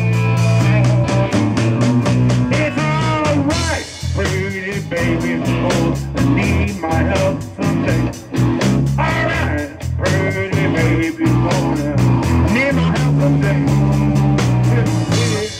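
Live rock band playing: electric guitar, bass guitar and a drum kit keeping a steady beat, with a man singing into the microphone.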